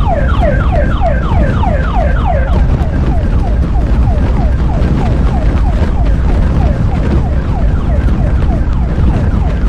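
Emergency vehicle siren in a rapid yelp, quick falling sweeps about four a second, over a loud low rumble. The sweeps grow fainter after the first few seconds but keep going.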